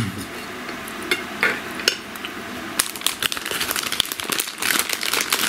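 A few light clicks, then from about three seconds in a plastic package being handled, crinkling and crackling densely.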